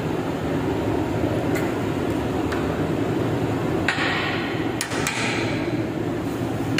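Steady low hum of workshop machinery, with a few light clicks and a short rustle about four to five seconds in as small parts are handled.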